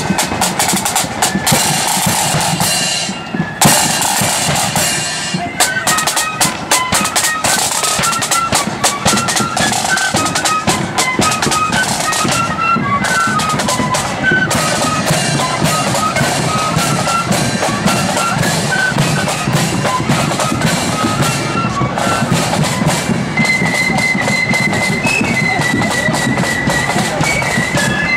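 Marching flute band playing: a bass drum and side drums beat throughout, and flutes come in with a melody about six seconds in.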